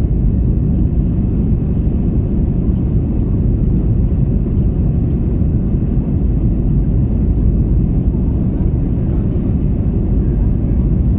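Steady low cabin roar of an Airbus A330-300 in flight after takeoff: engine and airflow noise heard from inside the cabin, unchanging throughout.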